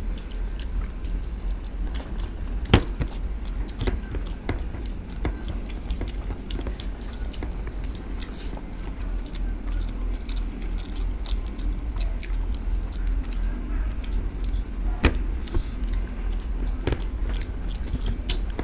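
Two people eating rice and chicken by hand: chewing and fingers working rice on plastic plates, with scattered sharp clicks, two louder ones about three and fifteen seconds in, over a steady low hum.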